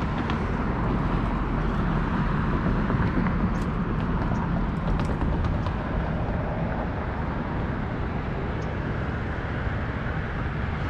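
Steady road traffic noise, a low even rumble with no single vehicle standing out.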